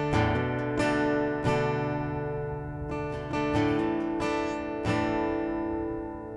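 Background music on acoustic guitar: chords strummed every second or so and left to ring.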